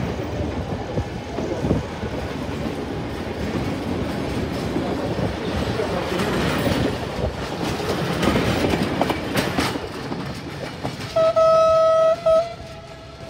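Tourist train running along the track, its wheels rumbling and clicking over the rails, then a loud train horn blast near the end, briefly broken before it stops.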